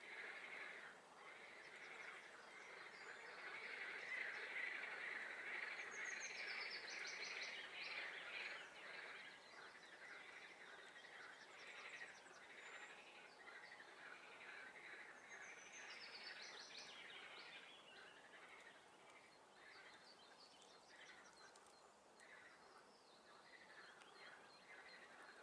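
Faint chorus of frogs calling from a swamp, a dense continuous chatter, loudest in the first half. Songbirds sing over it, one giving a trilling phrase that drops in pitch, twice.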